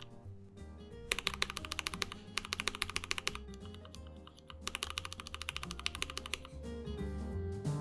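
Typing on mechanical keyboard switches in two bursts of rapid key presses, a demonstration of a switch's typing sound.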